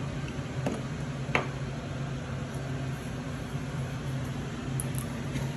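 A steady low mechanical hum with an even hiss, and two light clicks about a second in.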